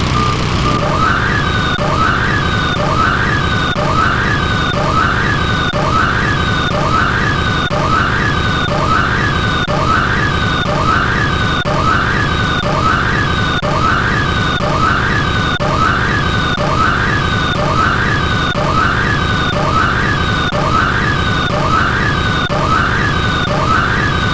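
Siren-like sound effect: a tone that sweeps up and back down about once a second, repeating evenly, over a steady high tone and a low hum.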